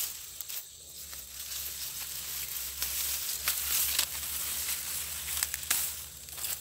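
Dry, ripe rice stalks and leaves rustling and crackling while rice is harvested by hand, with scattered sharp clicks and snaps among the rustle.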